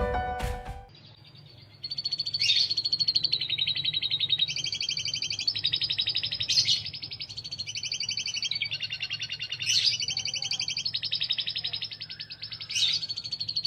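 Domestic canary singing a long rolling song: rapid, fast-pulsed trills, high-pitched, changing to a new trill pattern about every second, starting a couple of seconds in.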